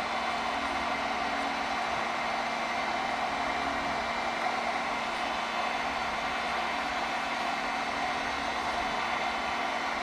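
Heat gun blowing steadily, a constant rushing hiss with a faint motor hum, set to about 550 degrees to soften vinyl wrap.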